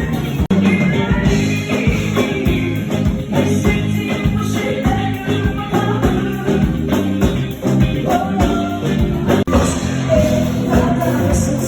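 Band music with a singing voice over drums and percussion. The sound cuts out for an instant twice, about half a second in and near the end.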